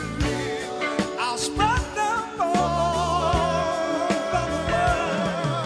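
Live soul band playing: a singer slides up and then holds one long, wavering note with vibrato over bass and drum beats.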